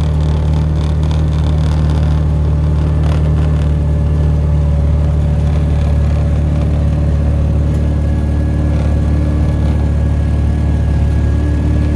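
Yamaha Rhino 700 side-by-side's single-cylinder engine running steadily under way, at a constant pitch.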